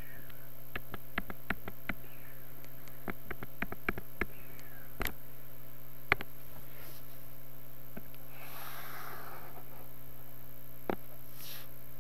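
Quick sharp clicks of a computer pointing device, a dozen or so in the first five seconds, then a few louder single clicks, over a steady low electrical hum. About eight seconds in there is a brief soft scratchy rustle.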